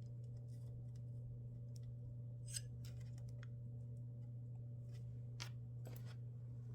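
A few faint sharp clicks of small hardware being handled and fitted, the loudest about two and a half seconds in and two more near the end, over a steady low hum.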